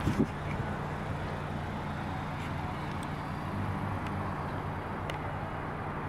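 A motor vehicle's engine idling, a steady, even low hum. A brief knock comes just after the start.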